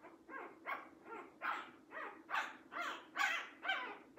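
Newborn mini sheepadoodle puppy crying in a quick series of short, high squeals, about two or three a second and growing louder, in protest at being laid on a cold, damp cloth.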